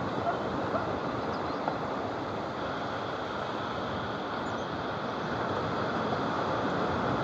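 Small waves breaking and washing up a sandy beach: a steady rushing noise that swells slightly near the end. A few faint short chirps sound in the first two seconds.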